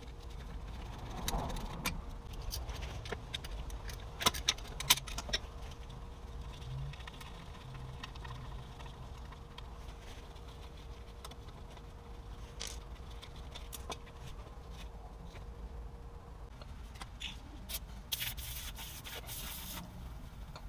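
Hand work on a car's transmission drive flanges from underneath: scattered metallic clicks and knocks, a quick cluster of them about four seconds in, and a short stretch of scraping near the end.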